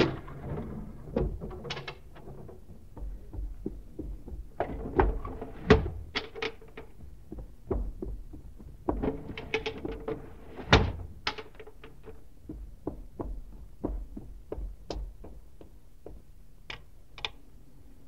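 Radio-drama sound effects of windows being shut and latched and gas jets turned on: a run of irregular knocks, thumps and sharp clicks. The loudest come about five to six seconds in and again near eleven seconds, and they thin out toward the end.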